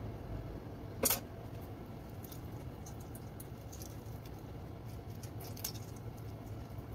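A grilled, salted lime being squeezed by hand: small scattered clicks and faint patter, with one sharper knock about a second in.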